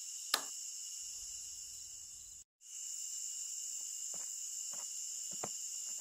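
Steady high-pitched insect chorus, with a sharp click a moment in and a run of soft light clicks in the second half as a finger handles a thin metal model railway rail. The sound cuts out for an instant midway.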